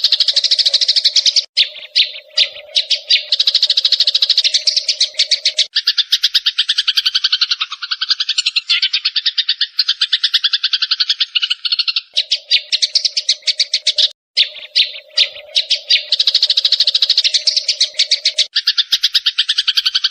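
A flock of sparrows chirping in a dense, rapid chatter of many overlapping calls, with short breaks about a second and a half in and about fourteen seconds in.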